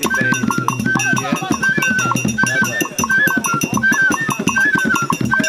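Music: a short high melodic phrase repeated over and over, about every eight-tenths of a second, over a steady drum and percussion beat.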